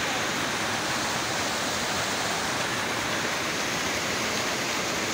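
A mountain stream cascading over boulders into a rock pool: a steady rush of falling water.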